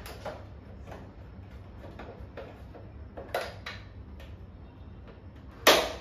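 Plastic clicks and taps from the front grille of a Lloyd split AC indoor unit as it is screwed and pressed back into place, with one louder snap near the end.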